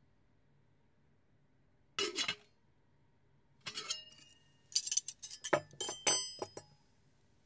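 Light clinking in three short clusters: a brief one about two seconds in, another near the middle, and a longer run of clinks near the end, each with a short bright ring.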